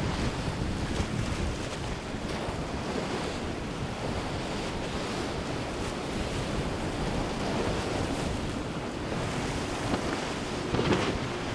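Rough inlet water and boat wakes rushing steadily, with wind buffeting the microphone and the faint hum of outboard-powered boats running past.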